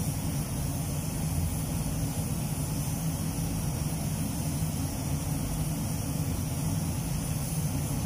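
Steady hum and hiss of a paint booth's air flow and a compressed-air spray gun spraying clear coat on a car.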